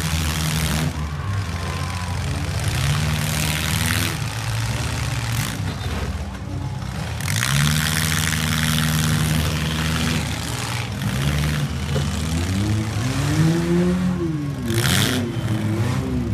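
Compact demolition derby cars' engines running, a steady low drone with engines revving up and down, most clearly about halfway through and again near the end.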